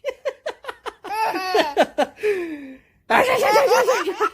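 Baby laughing: a quick run of short high-pitched laughs, then a longer laugh, a brief pause, and another laugh.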